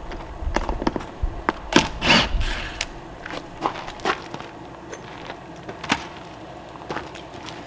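Irregular knocks, clicks and scuffs of hand work on wooden concrete forms, with two louder scraping sounds about two seconds in and a low rumble during the first couple of seconds.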